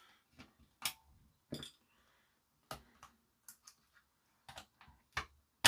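Scattered plastic clicks and small knocks from handling TV remotes, opening a battery cover and taking out the batteries to swap them, with one sharper knock near the end.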